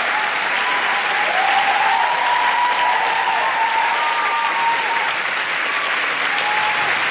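Audience applauding steadily in a concert hall, with a few drawn-out cheers over the clapping.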